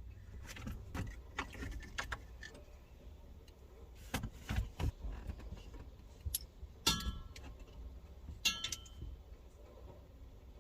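Scattered metallic clicks and clinks of tools and loose hardware while nuts are undone on a car's shifter mount. Two louder clinks ring out, about seven seconds in and again a second and a half later.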